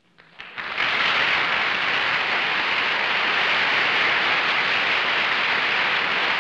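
Studio audience applauding: a few scattered claps, then steady applause from about a second in.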